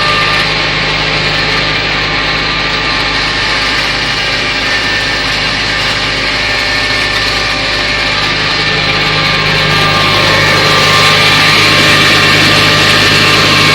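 Claas Arion tractor running steadily, working a Grimme SE 75-30 potato harvester, with a dense steady machinery noise over the engine; it grows a little louder near the end.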